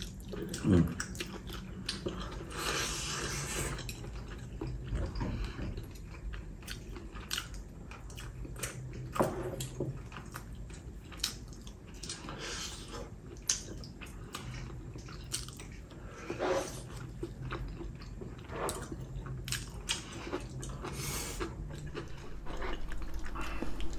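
Two people chewing and biting into pieces of spicy braised chicken (dak bokkeumtang) close to the microphone: a scatter of short, wet mouth clicks and smacks.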